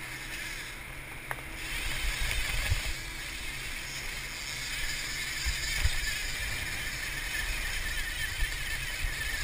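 A big sportfishing boat's diesel engines running under way, with the wake churning and hissing astern and wind buffeting the microphone in uneven low thumps.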